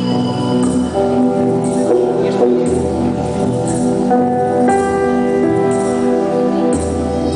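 Background music: sustained chords with a bass line and a light regular beat, no machine sound audible over it.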